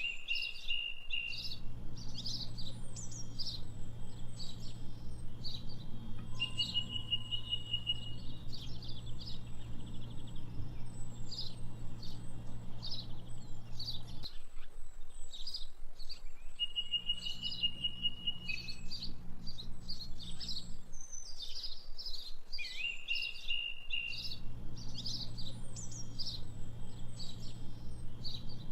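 Birds chirping, with quick high chirps and a level trill coming back every few seconds in a repeating pattern, over a low steady hum that drops out twice.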